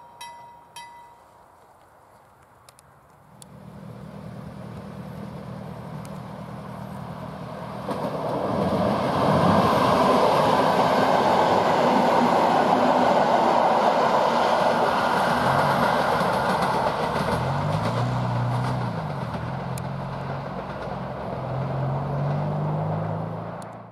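PKP EN57 electric multiple unit passing close by. A steady low hum builds from a few seconds in, then wheel-and-rail noise is loudest from about eight seconds in. Near the end a humming tone wavers up and down, and the sound cuts off suddenly.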